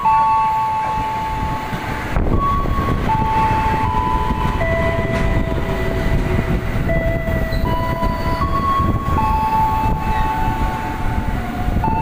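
KRL Commuter Line electric train (ex-JR 205 series) pulling into the platform, its rolling rumble building from about two seconds in and running on as the cars pass. Over it, a slow sequence of held electronic tones steps from pitch to pitch, about one note a second.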